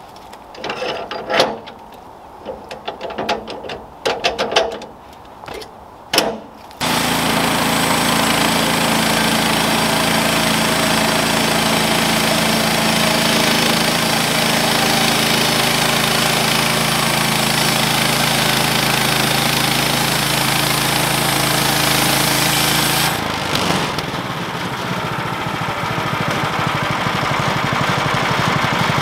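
A few knocks and clatters. About seven seconds in, the gas engine of a Woodland Mills HM130 portable bandsaw mill starts running steadily at full throttle. Near the end its even note drops and turns rougher as the band blade enters the log and the engine comes under cutting load.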